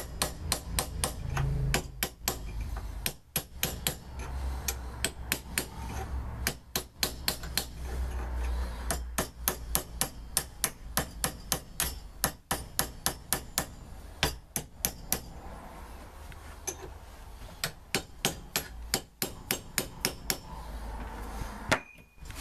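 Small hammer tapping on steel on a Triumph steering rack in a vice, knocking over the locking tab washer. The taps are quick and even, about three a second, with a pause of a couple of seconds past the middle.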